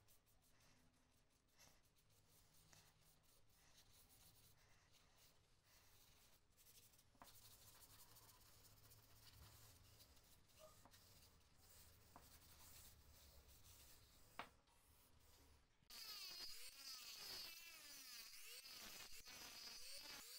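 Faint rubbing of a paper towel on wooden tool handles, close to silence. About four seconds before the end, a louder, higher-pitched sound sets in.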